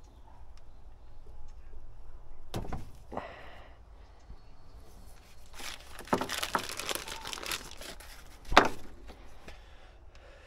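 Plastic packaging crinkling and tearing as the packet holding a new fuel filter is handled, with loose knocks of tools. There is one knock about two and a half seconds in and a sharp clack near the end, which is the loudest sound.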